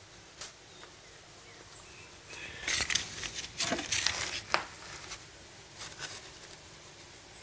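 Handling noise: a hand-forged knife in a leather sheath being put away and set down on a granite countertop among small iron items, giving a short cluster of scrapes and light clicks a few seconds in and a few soft ticks later.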